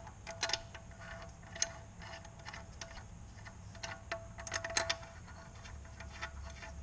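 Light metallic clicks and ticks of thin shims and a main bearing cap being handled and set against the Allis-Chalmers C engine block, in small clusters, the loudest a little after four and a half seconds.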